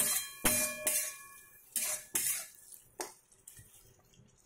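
A metal spatula knocking and scraping against a steel kadhai as softened mango pieces are mashed into a gravy-like chutney. There are about six clinking knocks, each ringing briefly, in the first three seconds, then fainter scraping.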